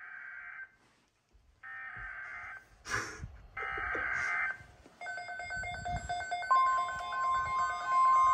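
Emergency Alert System SAME header: three buzzy digital data bursts of about a second each, followed from about six and a half seconds in by the steady single-pitch NOAA Weather Radio alert tone, announcing a severe thunderstorm watch.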